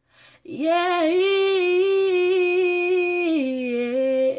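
A woman's voice holding one long wordless sung note, unaccompanied, that steps down to a lower pitch about three seconds in.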